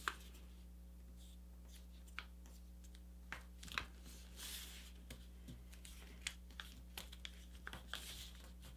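Faint rustling and crinkling of a paper airplane being folded and creased by hand, with scattered short crackles, over a low steady hum.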